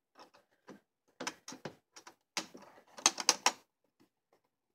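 Hard plastic clicking and knocking as the flip-up touchscreen panel of a Brother ScanNCut CM350 cutting machine is handled. The clicks are scattered at first, with a quick run of louder ones about three seconds in.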